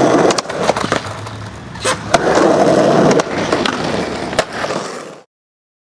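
Skateboard rolling on concrete, a rumble of the urethane wheels that swells twice, with a few sharp clacks of the board. It fades out to silence about five seconds in.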